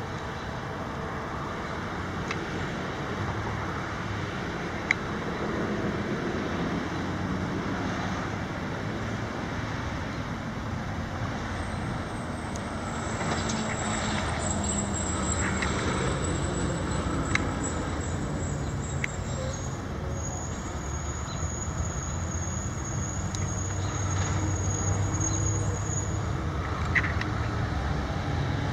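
Diesel-electric freight locomotives, a CN SD70M-2 leading a C44-9W, rumbling as they approach, the engine drone growing steadily louder. A thin high whine runs through the middle part.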